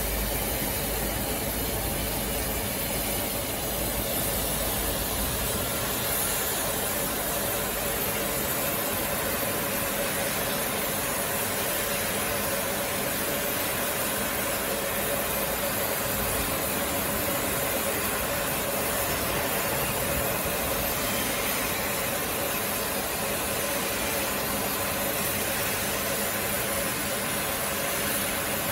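Torches of a CNC gantry cutting machine cutting through steel plate: a steady hiss of the cutting jets, with a steady hum underneath.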